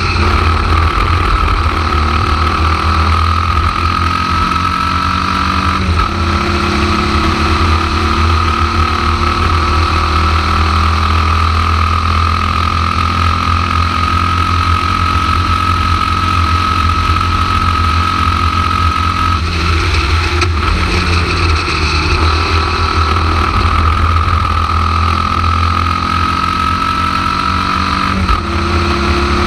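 Formula Vee racing car's air-cooled Volkswagen flat-four engine running hard at racing speed, heard onboard. The note is steady, with brief breaks and changes about six seconds in, around twenty seconds in and near the end.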